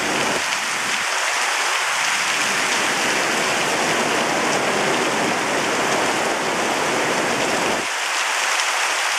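Heavy rain pouring steadily in a thunderstorm. A low rumble sits under it for several seconds and cuts off suddenly near the end.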